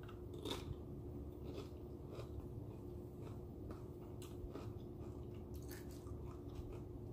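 Close-miked chewing of crisp fried corn tortilla, with irregular crunches every half second or so as the bite is broken down.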